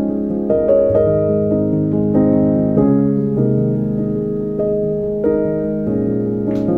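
Slow, soft instrumental background music on a keyboard, single notes and chords changing about every half second to a second.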